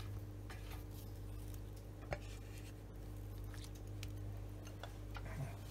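Faint sticky dabbing and a few light clicks of a silicone basting brush spreading barbecue sauce over ribs in a roasting tray, with one sharper click about two seconds in, over a steady low hum.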